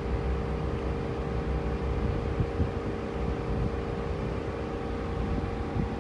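Steady mechanical hum of a running machine, a low rumble with a steady tone in it, and a couple of light knocks near the end.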